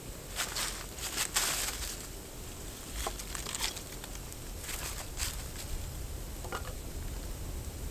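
Irregular rustling and crunching of dry leaves and sticks being handled beside a small wood fire, with a few short sharp crackles.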